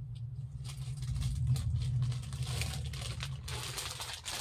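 Katan silk saree fabric rustling and crinkling as it is handled and spread out, a busy run of small quick rustles over a steady low hum.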